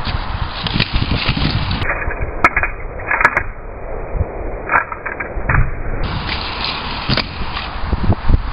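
Kick scooter wheels rolling over skatepark ramps and deck, with a handful of sharp clacks as the deck and wheels hit ramp edges and joints.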